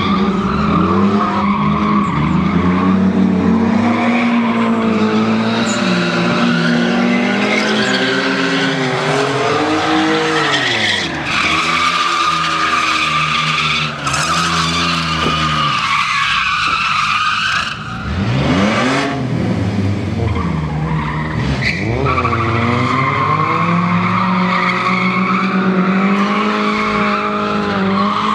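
Chevrolet Silverado pickup drifting, its engine held at high revs and tires squealing continuously. The revs dip briefly a couple of times, fall away about two-thirds of the way through, then climb back up and hold high again.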